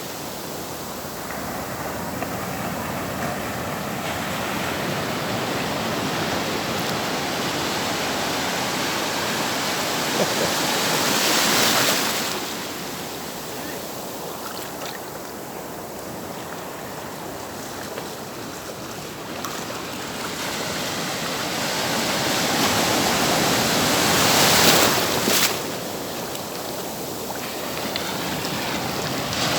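Ocean surf: a steady wash of water, with waves building and breaking on the shore twice, about halfway through and near the end.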